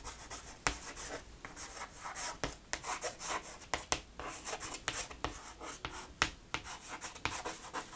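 Chalk writing on a chalkboard: an irregular run of short scratches and taps, several a second, as letters are written.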